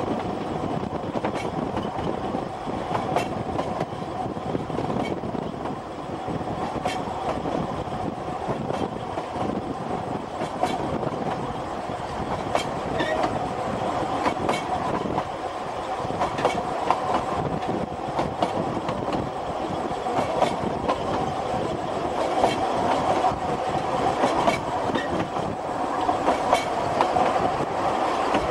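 Narrow-gauge (2 ft) passenger coaches running along the line, their wheels clicking irregularly over rail joints above a steady rumble of the moving train.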